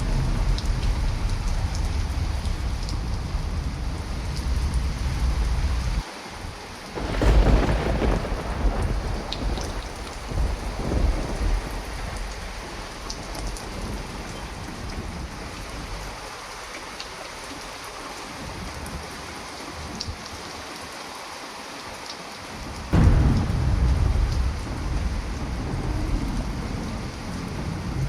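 Heavy rain with rolling thunder. A low rumble at first gives way to a loud thunderclap about seven seconds in, which rumbles away over several seconds. Rain alone follows, then a second sharp thunderclap near the end rolls on.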